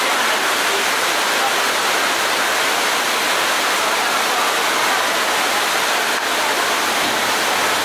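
Heavy rain falling, a steady dense hiss.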